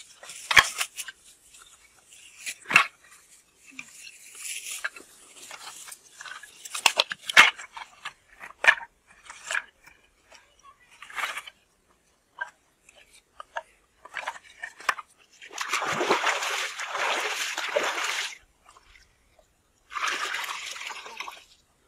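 Dry sticks and brushwood snapping and rustling as they are broken by hand and piled for a fire, with a sharp snap every second or two. Later come two longer stretches of water splashing and sloshing.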